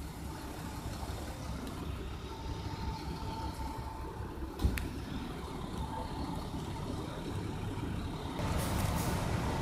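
Fire truck engines running, a steady low rumble, with a single sharp knock about halfway through; the engine noise grows near the end as the tanker truck moves off.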